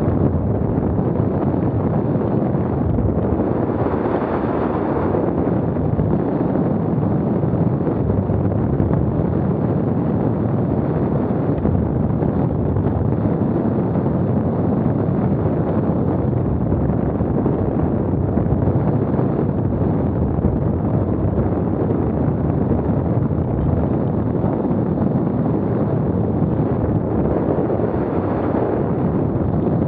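Strong wind buffeting the microphone: a loud, steady rumbling noise with no other sound standing out.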